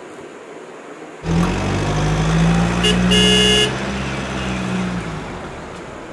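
A car engine running steadily, starting suddenly about a second in and dying away about five seconds in, with one short car-horn toot in the middle.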